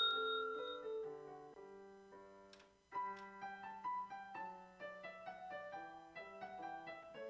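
Soft piano background music, with the high ring of an exam-timer bell, struck just before, dying away in the first second. The music drops out briefly near the middle and then carries on.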